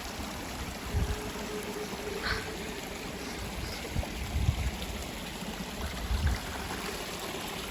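Steady rushing of a small stream running over rocks. A few dull low thumps come about one, four and six seconds in.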